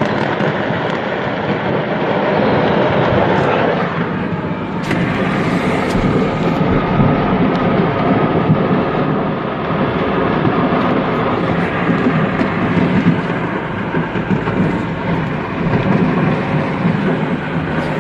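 Fireworks going off en masse: a continuous loud rumble with dense crackling.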